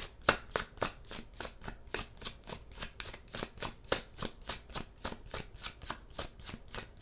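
Tarot deck being shuffled by hand: a steady run of soft card slaps, about five a second.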